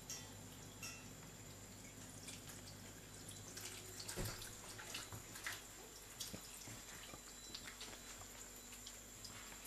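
Thin stream of water running from a kitchen tap into a stainless-steel sink, with faint irregular drips and splashes. A single louder knock comes about four seconds in.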